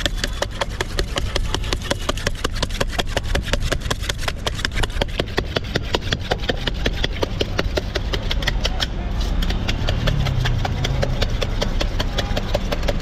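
Rapid, regular scraping and clinking inside a stainless steel mug, about six strokes a second, as its contents are worked by hand for an aloe vera drink. Steady traffic engine hum underneath.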